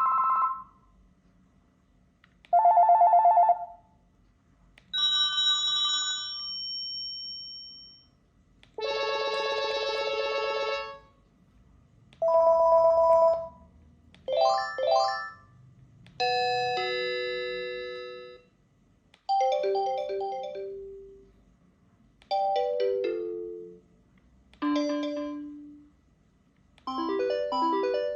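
Panasonic KX-TGD322 cordless phone playing its built-in ringtones one after another: about ten short electronic chimes and melodies, each lasting one to three seconds, with brief pauses between them.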